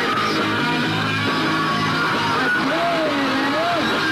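Loud punk rock: distorted electric guitars, bass and drums, with a voice singing or shouting over them.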